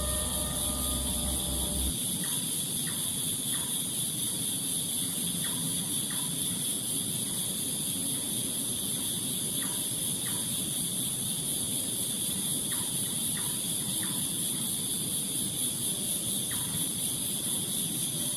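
Night chorus of crickets or other insects, a steady shrill drone, with short falling chirps from some small animal every second or so, often in pairs. A musical tone and low hum cut off about two seconds in.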